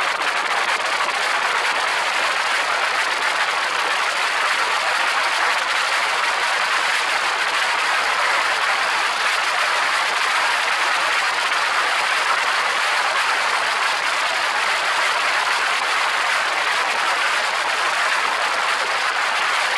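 Steady, even rush of wind from the slipstream blowing over the microphone of a camera on an open-cockpit aircraft in flight, with no distinct engine tone standing out.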